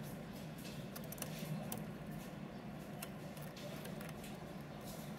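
Quiet room tone: a steady low hum with a few faint, scattered light ticks.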